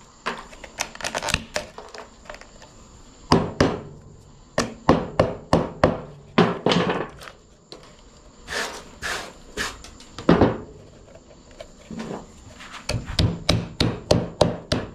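Hammer striking the thin wafers of wood left between saw kerfs in a notch cut into a 4x4 post, knocking them out: an irregular series of sharp knocks, some in quick runs and some alone.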